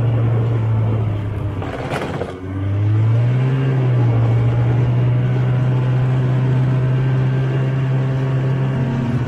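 Snowmobile engine running under steady throttle; it eases off with a brief rush of noise about two seconds in, then revs back up around three seconds and holds a steady pitch.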